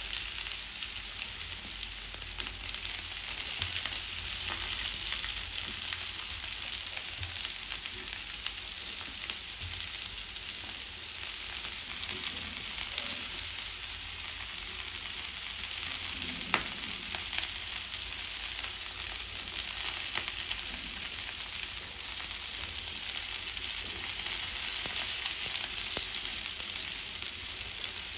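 Vegetables sizzling in a hot frying pan: a steady, even hiss, with a few light knocks about halfway through.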